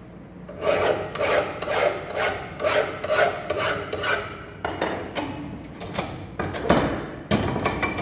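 Hand file rasping across steel held in a bench vise, about nine strokes at roughly two a second. In the second half come sharper metallic clicks and knocks, with the vise handle being worked.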